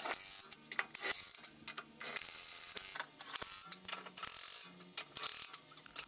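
Cordless impact wrench running lug nuts onto a wheel hub in a series of short rattling bursts, its motor hum under the hammering.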